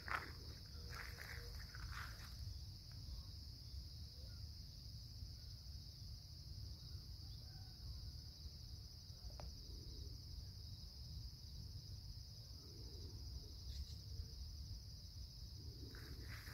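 A steady, high-pitched chorus of crickets and other field insects, with a low rumble underneath. A few soft rustling footsteps in grass come near the start.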